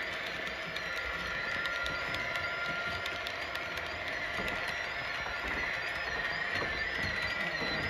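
OO gauge model train, a rake of Hornby Pullman coaches, running along the layout's track: a steady hum with many small clicks from the wheels rolling over rail joints.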